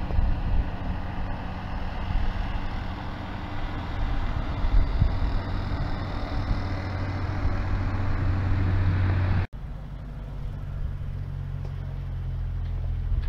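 A motor running steadily: a low hum under a rushing noise. It cuts off abruptly about nine and a half seconds in and gives way to a quieter, lower hum.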